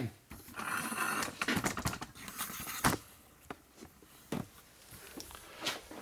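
Hands handling tools and parts on a steel workbench: a few seconds of rustling and scraping that ends in one sharp click, then a few light scattered clicks and knocks.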